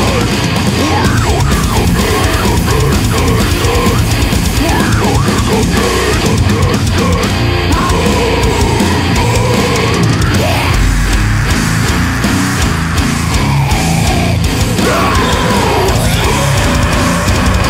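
Deathcore band recording: heavily distorted guitars and drums, loud and dense, with sliding pitched lines over the top.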